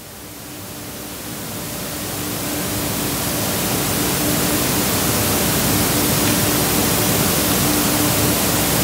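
Steady hiss of room noise with a faint low hum, swelling over the first few seconds and then holding level.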